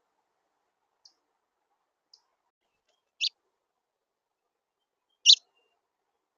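A bird's short, sharp chip notes, four of them spaced a second or two apart, the last two loudest.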